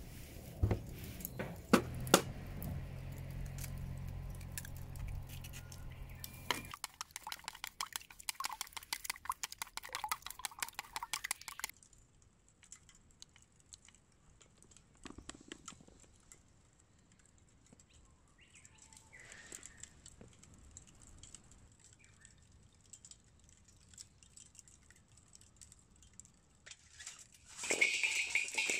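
Scattered clicks, knocks and rustles of camp gear being handled, with a quieter stretch in the middle. Near the end comes a short, louder clatter and crackle as lit charcoal is tipped from a chimney starter onto a fire stand.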